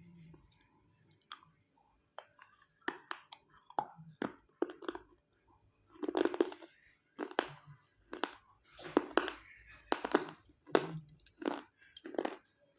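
Slate pencils being bitten and chewed close to the microphone: a few sharp, brittle snaps at first, then loud, gritty crunching about once a second as the pieces are ground between the teeth.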